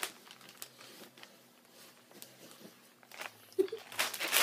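Soft rustling of bedding and scattered small clicks as a person shifts their weight on a bed, growing louder near the end.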